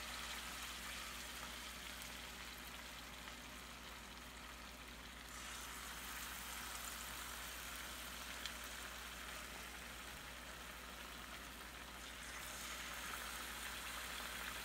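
Batter-coated eggplant slices frying in hot oil in a pan: a steady sizzle that grows louder as more slices go in, about five seconds in and again near the end.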